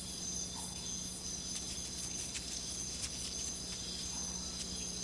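Steady high-pitched chirring of an insect chorus, unbroken, with a faint low hum underneath.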